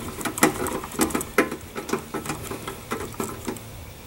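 Irregular light clicks and taps, several a second, of hand-tool work on a plasma cutter's sheet-metal cover as it is fastened back on.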